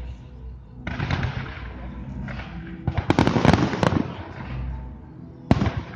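Aerial fireworks shells bursting in the sky: a burst about a second in, a dense rapid crackling about three to four seconds in, and a single sharp bang near the end.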